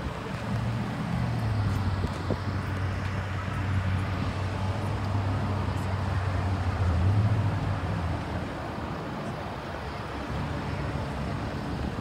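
Motor vehicle engine running with traffic noise: a steady low hum that swells briefly about seven seconds in.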